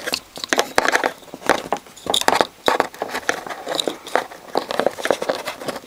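Hands working a battery charger's lead wire back through its fitting: a close run of irregular clicks, rubs and scrapes.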